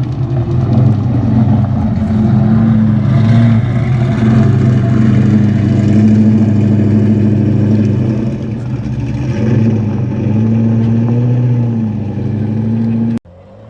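Car engines running and revving as cars pull away, their pitch rising and falling a few times. The sound cuts off abruptly near the end.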